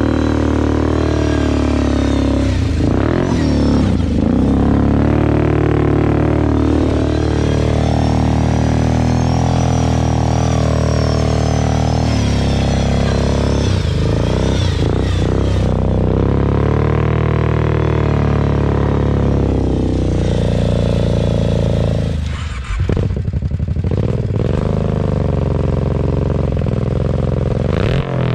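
Kawasaki KFX 700 quad's V-twin engine revving hard under throttle while drifting on snow, its pitch rising and falling again and again. The engine note drops away briefly about 22 seconds in, then picks up again.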